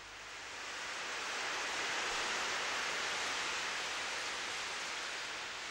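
Rain falling steadily, a hiss that builds over the first second and a half and then holds.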